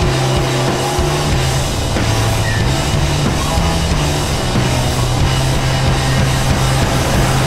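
Loud rock music with electric guitar and drums, playing steadily.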